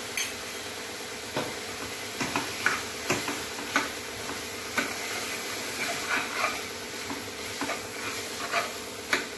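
Steel spoon stirring chopped vegetables, sprouted horse gram and masala powder in an aluminium pressure cooker pot, with irregular clinks and scrapes of the spoon against the pot over a steady hiss.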